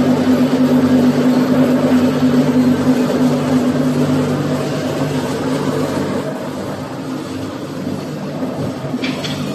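Rebar ring bending machine running, with a steady motor hum that eases off slightly partway through. A few light clicks come near the end.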